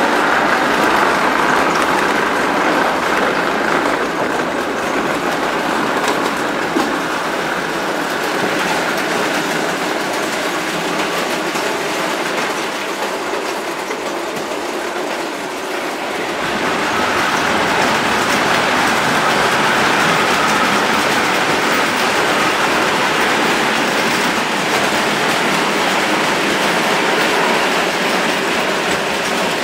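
O gauge tinplate model train running on three-rail metal track: a steady rumble and rattle of wheels on the tinplate rails. It eases off a little around the middle, then grows louder again just past halfway.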